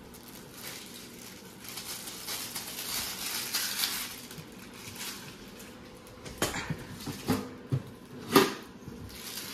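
Large metal snack tin being handled and its lid worked off: a scraping, rustling stretch, then several sharp metallic clanks in the last few seconds, the loudest just before the end.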